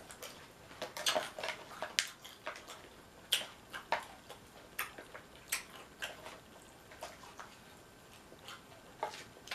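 Eating nachos from a plastic bowl: irregular sharp clicks of a fork against the bowl, mixed with the crunch of tortilla chips, thinning out in the second half.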